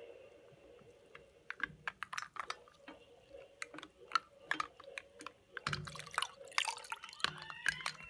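A plastic ladle being worked through punch in a glass bowl: liquid sloshing and dripping, with irregular sharp clicks and knocks that begin about a second and a half in and grow busier near the end.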